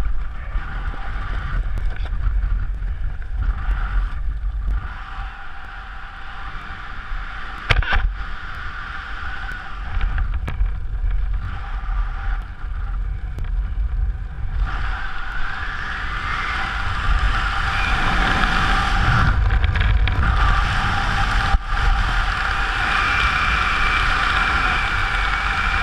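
Wind rushing over a head-mounted camera's microphone during a descent under an open parachute canopy: a steady rumbling rush that grows louder from about halfway through, with a single sharp knock about eight seconds in.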